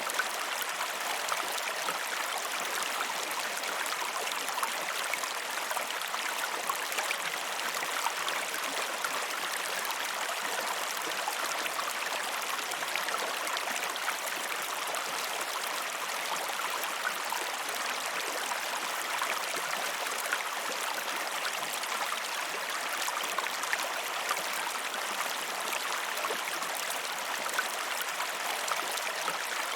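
A river flowing steadily: a continuous rush of water with fine splashing and gurgling, even in level throughout.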